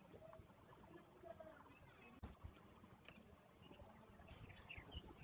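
Quiet background with a steady high-pitched insect-like whine, and one sharp knock a little over two seconds in.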